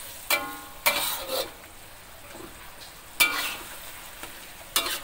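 A metal spatula scrapes and knocks against a metal wok while broccoli and tofu are stir-fried, giving about five sharp, ringing clanks over a low, steady sizzle.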